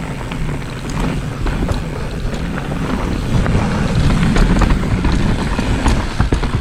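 Kona Process 134 mountain bike rolling down a loose, eroded trail: tyres crunching over dirt and rock, with scattered clicks and rattles from the bike and wind buffeting the microphone.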